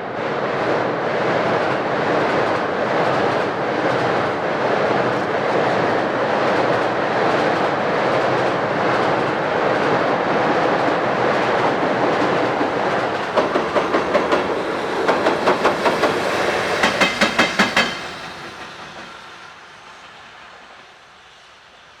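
Train passing close by: a loud steady rumble, then near the end several quick runs of clickety-clack as wheels cross rail joints, before the sound dies away.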